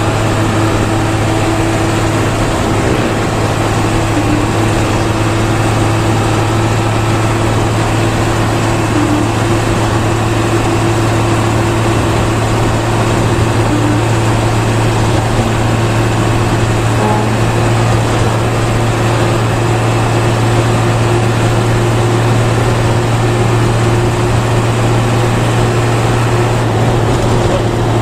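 Intercity bus heard from inside the cabin while cruising: a steady low engine drone with road and tyre noise, unchanging throughout.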